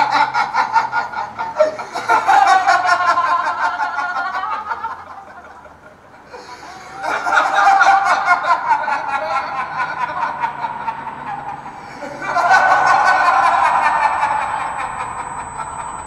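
A man laughing in three long, drawn-out bouts, each made of rapid pulses that slide down in pitch.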